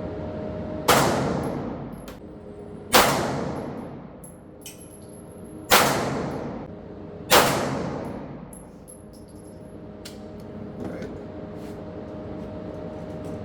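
Four single shots from a Foxtrot Mike FM9 9mm AR pistol, unevenly spaced over about six and a half seconds, each with a ringing tail.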